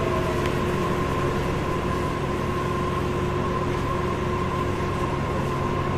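Interior running noise of a Tokyo Monorail car pulling into a station: a steady rumble with a thin, even motor whine.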